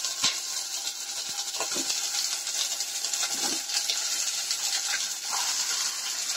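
Raw chicken pieces sizzling in hot oil in a saucepan: a steady frying hiss with a few brief clicks and knocks.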